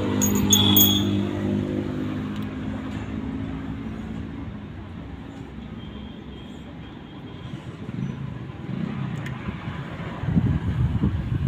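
A motor vehicle engine running steadily and fading away over the first few seconds, with a few light metallic clinks near the start. A louder, uneven low rumble comes in near the end.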